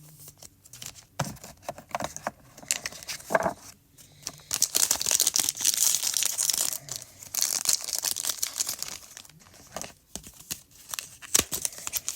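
Foil Pokémon booster pack crinkling and being torn open, scattered sharp crackles with a dense stretch of crinkling through the middle.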